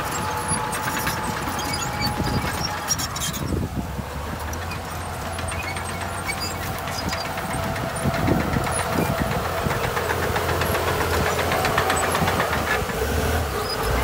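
Heavy construction machinery's diesel engine running steadily, with a light rapid clatter over the drone.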